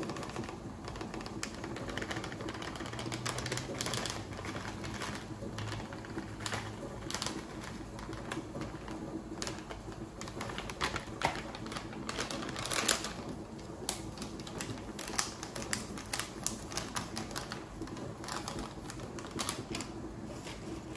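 Foil-lined plastic snack packet crinkling and rattling as dried seaweed flakes are shaken out of it, in irregular sharp clicks and crackles.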